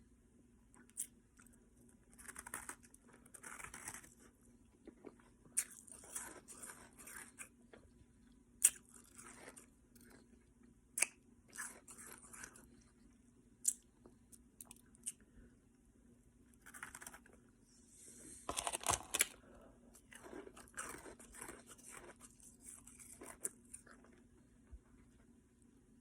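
A person crunching and chewing ice cubes: sharp cracks and bursts of crunching come at irregular intervals, with the loudest run of crunching about three quarters of the way through.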